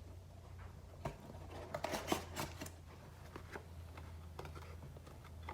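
Trading-card box packaging being handled and opened: scattered sharp clicks and short crinkling rustles, busiest about two seconds in, over a steady low hum.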